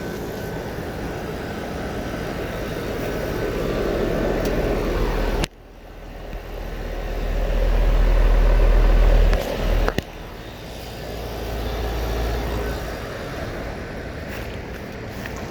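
Outdoor air-conditioner condensing units running with a steady fan whir. From about a third of the way in to about two-thirds, a deep rumble of air blowing across the microphone swells up and then stops abruptly.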